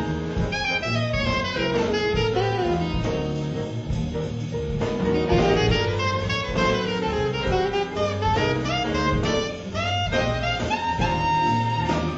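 Alto saxophone playing an improvised jazz solo in quick, flowing runs up and down, backed by upright bass and drum kit.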